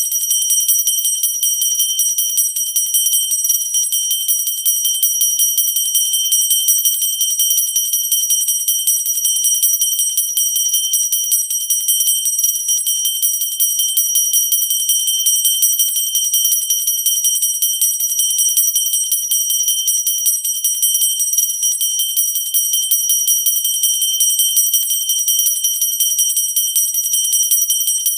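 Pooja bell rung continuously with rapid, even strikes, making a steady high ringing.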